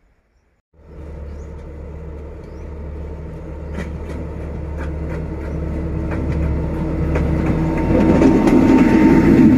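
Near silence, then about a second in the sound of the D20E-007 diesel-electric locomotive's engine comes in suddenly and grows steadily louder as the locomotive approaches with its freight train. Scattered sharp clicks of the wheels on the rails are heard along with it.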